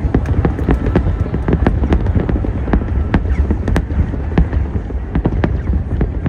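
Fireworks bursting in quick succession: many sharp bangs and crackles, several a second, over a continuous deep rumble.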